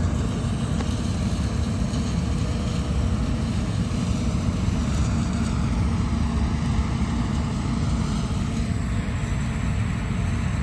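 Combine harvester running steadily while it cuts paddy: a constant low rumble of engine and threshing machinery with no breaks.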